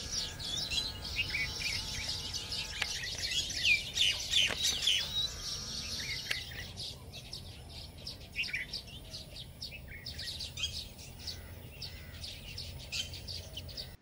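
A colony of baya weavers chattering at their hanging nests: many overlapping high chirps and quick wavering calls, thickest in the first half and thinning out after. This is the loud calling of the breeding season, heard over a low steady background rumble.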